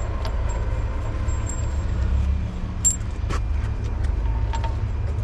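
A diesel engine idling with a steady low rumble, and a few sharp metallic clinks of wheel nuts and tools being handled.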